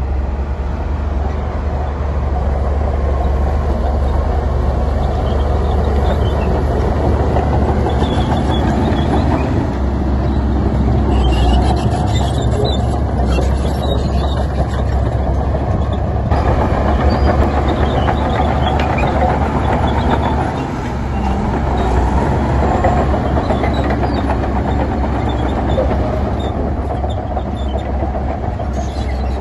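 Heavy diesel earthmoving machinery running steadily under load: a loud, continuous low rumble.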